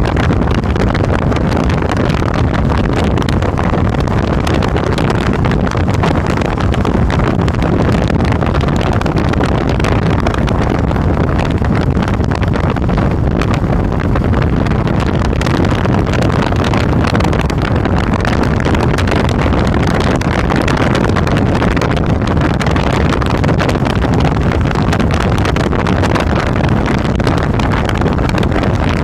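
Suzuki Boulevard C50's 805 cc V-twin running steadily at cruising speed, mixed with wind rushing over the microphone.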